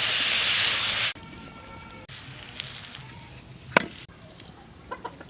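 Food frying with a loud, steady sizzle that cuts off abruptly about a second in, followed by quieter background with a few sharp clicks or knocks.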